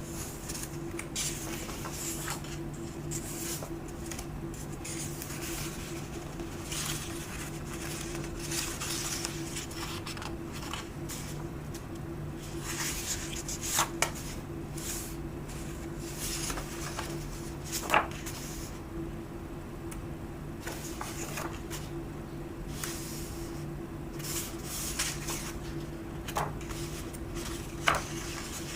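Pages of a paperback book being turned one after another, with repeated soft paper rustling and three sharp paper snaps or taps. A steady low hum runs underneath.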